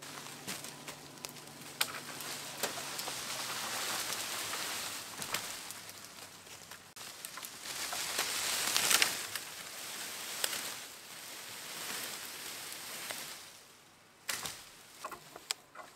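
Dry fallen leaves rustling and crackling as a long dead branch is dragged across the leaf-covered forest floor, in swells that rise and fade, with a few sharp cracks of twigs.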